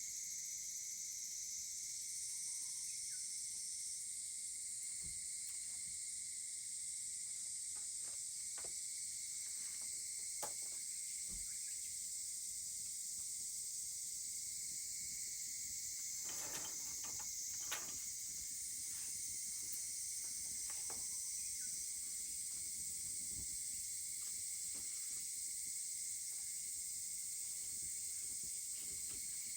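Steady, high-pitched chorus of summer insects, with scattered sharp crackles and pops from a wood fire, a small cluster of them about two-thirds of the way in.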